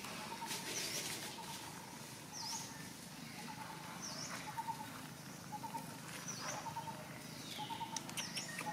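Wild birds calling over and over: a high, sharp down-and-up note about every two seconds, and between them short quick runs of lower pips. A few light rustles and taps come near the end.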